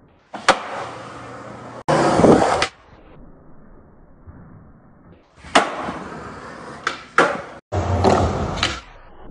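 Skateboard tricks on concrete: several sharp snaps and claps of the board popping and landing, with the wheels rolling on the ground between them, in short bursts that cut off abruptly.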